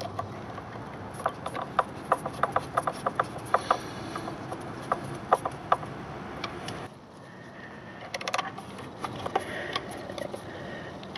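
Screwdriver turning the green ground screw in a pool pump's wiring terminal: a run of sharp, quick clicks, several a second, then a short lull and a few more clicks near the end.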